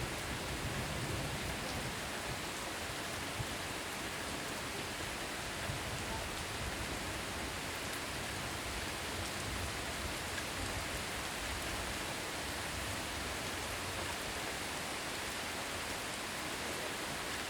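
Heavy rain falling steadily, a dense even hiss of rain on surfaces with a few individual drop ticks standing out.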